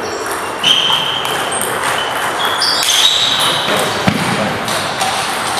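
Table tennis rally: the celluloid ball clicks off bats and table, and shoes squeak on the wooden floor with a few high squeaks in the first few seconds. The hall echoes.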